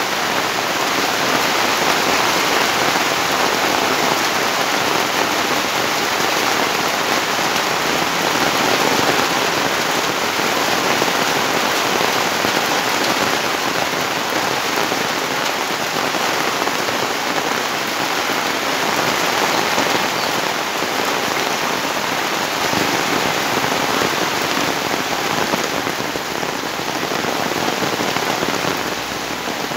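Steady, heavy rain falling, a dense even hiss with no let-up.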